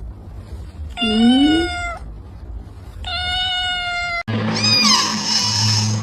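A cat meowing: two drawn-out, fairly level meows about two seconds apart. About four seconds in, the audio cuts abruptly to another recording with a higher, downward-gliding call over a low steady hum.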